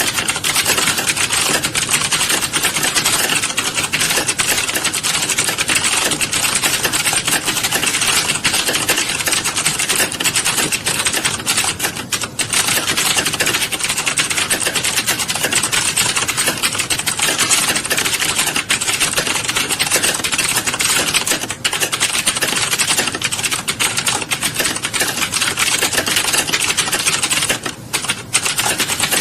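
Fast, continuous typing on a keyboard: a dense run of keystroke clicks with a few brief pauses, about twelve and twenty-one seconds in and again near the end.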